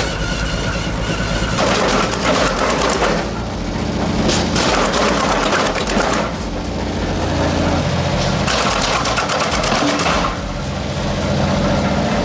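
Heavy shredding machine running under load: a steady engine drone, with three louder stretches of crunching and rattling as material is fed through and broken up.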